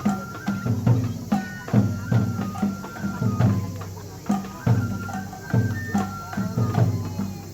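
Japanese festival hayashi music accompanying a lion dance: taiko drums struck in a repeating pattern under a bamboo flute holding a high melody that steps from note to note.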